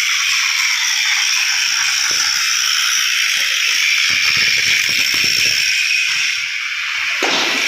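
Electric welding arc crackling and hissing steadily, with a dense run of small pops and clicks throughout.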